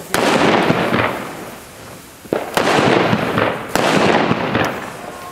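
Mini Toffee butterfly firecrackers (small spinning ground bangers by Original Fireworks) going off on paving, three in turn: each starts with a sharp crack and then a loud fizzing rush that fades over about a second.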